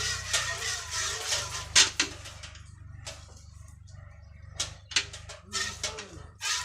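Cow being milked by hand: irregular short squirts of milk hitting a pail, coming quicker in the second half.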